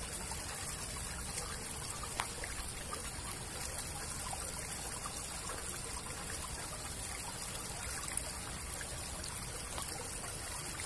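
Steady trickle of water running through a concrete drain, with a couple of faint clicks.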